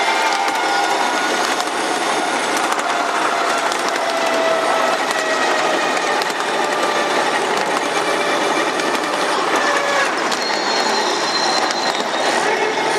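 Ride-on 7.5-inch gauge miniature train running along its track: a steady clatter of wheels and running gear, with squealing tones that waver in pitch.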